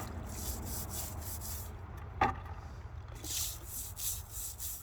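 Scrubbing strokes on a greasy metal locomotive chassis with degreaser, a rapid rasping rub repeating about three times a second, with a single knock about two seconds in.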